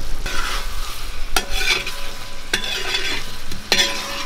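Chicken masala with fried onions sizzling in a metal pot as metal tongs stir and scrape through it. The tongs knock against the pot three times, each knock followed by a faint ring of the metal.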